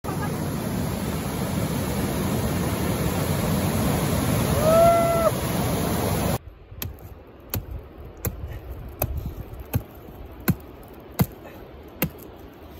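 Mountain stream rushing over rocks, with one short pitched call about five seconds in. After a sudden cut, a run of about nine sharp knocks of a hand tool striking, evenly spaced at roughly one every three quarters of a second.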